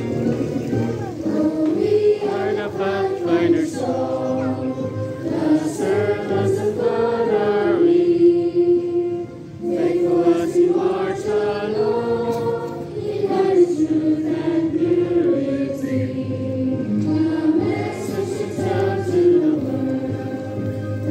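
Many voices singing a slow song together in long, held notes, with a short break about nine and a half seconds in.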